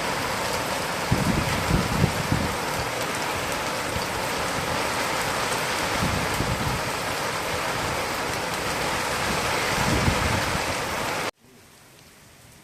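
Heavy rain pouring down steadily during a storm, with a few low rumbles. Near the end it cuts off abruptly to a much quieter rain.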